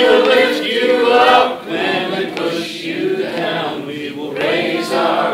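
A congregation singing together, led by a male voice, with acoustic guitar accompaniment.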